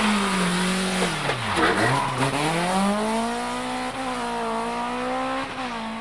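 BMW 3 Series (E36) rally car's engine at full stage pace. The revs drop sharply in the first second and a half, then climb back and hold as the car pulls away. The sound cuts off suddenly at the end.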